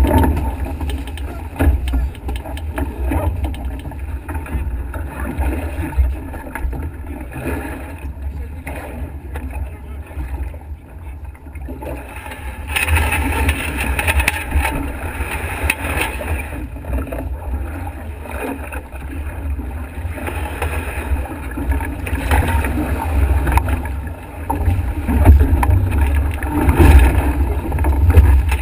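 Wind buffeting the microphone over water rushing past the hulls of a Nacra 5.8NA catamaran sailing fast in strong wind. It eases for a few seconds about a third of the way in, then grows louder again.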